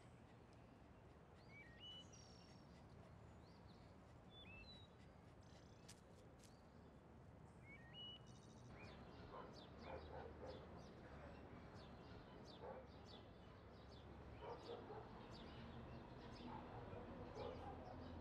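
Quiet outdoor ambience. In the first half there are a few faint bird chirps, short calls gliding up in pitch. In the second half a scatter of faint clicks and knocks follows.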